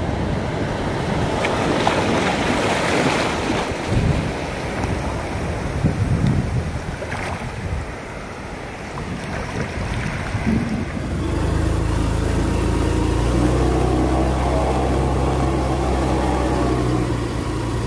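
Ocean surf washing in, with wind buffeting the microphone, for about the first eleven seconds. Then a steady hum with several even tones takes over.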